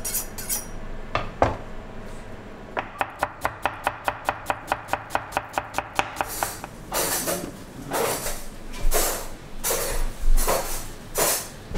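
Santoku-style chef's knife chopping rapidly on a plastic cutting board, a fast, even run of about six or seven strokes a second. Some three seconds later come louder, coarser rasping strokes about once a second.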